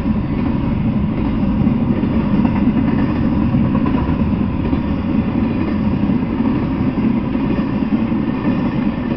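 Double-stack intermodal freight train rolling past, its cars making a steady low rumble on the rails.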